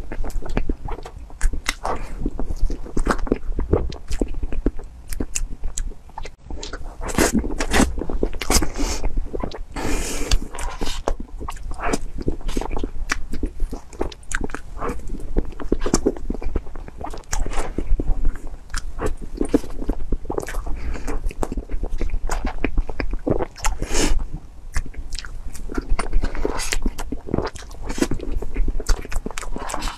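Close-miked eating of soft whipped-cream cake: a dense, continuous run of short wet mouth smacks and chewing clicks.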